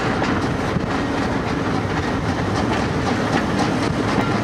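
Heritage train carriages running along the track, heard from an open carriage window: steady wheel-and-rail running noise with a quick, regular clatter.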